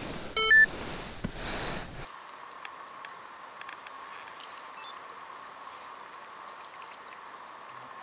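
Water splashing as a hooked roach thrashes at the surface, with a short loud electronic-sounding beep about half a second in. After about two seconds this gives way to a quieter steady hiss with scattered faint clicks.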